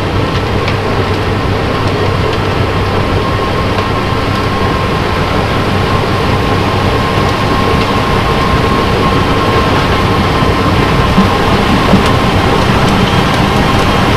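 Tractor-mounted snowblower running steadily as it chews through a packed snowbank and blows the snow into a truck container, over the drone of heavy diesel engines with a steady high whine. The sound grows slowly louder.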